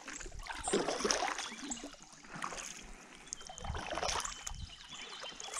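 Kayak paddle strokes through calm water: a swish and splash of water with each of several strokes, about one every second and a half.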